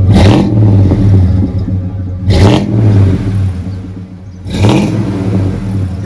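Chevrolet Silverado 400SS's 5.7-litre V8 breathing through a Flowmaster Series 40 muffler, idling steadily and revved in three short throttle blips about two seconds apart.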